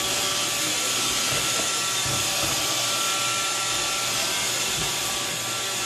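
Roomba robot vacuum running on carpet, a steady whirring hiss at an even level.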